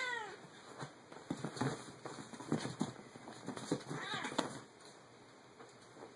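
Domestic cat yowling as it fights off a monkey: a short cry falling in pitch at the start and another about four seconds in, with scuffling and thumps of the two wrestling on a leather couch in between.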